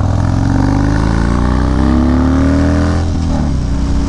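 Harley-Davidson Dyna's V-twin engine, through a Bassani Road Rage 3 exhaust, accelerating on the road with its pitch rising steadily for about three seconds; then the pitch drops and the engine runs on at a steady, lower note.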